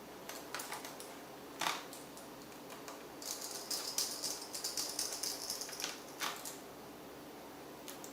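Light, sharp clicks of small hard parts being handled during laptop disassembly, with a dense stretch of rapid high-pitched clicking and rattling in the middle.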